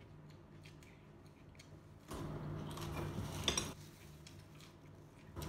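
Dishes being handled: a bowl of cut vegetables is moved across the floor covering, a scraping rustle starting about two seconds in with a few sharp clinks partway through.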